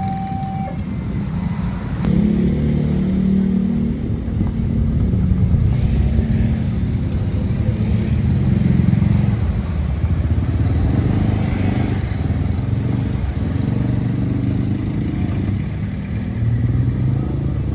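A railway crossing's two-tone alarm stops just under a second in. Then several motorcycle and other road-vehicle engines run and pass at once, swelling and fading.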